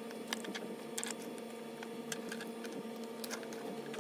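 Light clicks and taps of small stationery items, a plastic card among them, being handled and set down on a desktop, scattered irregularly over a steady background hum.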